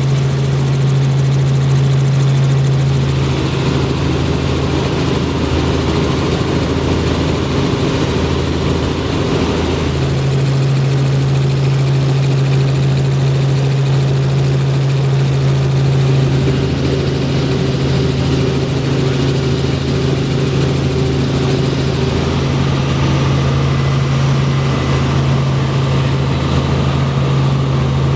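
Helicopter engine and rotor drone heard from inside the cabin in flight, steady and loud. A low hum within it drops away about three seconds in and comes back about ten seconds in.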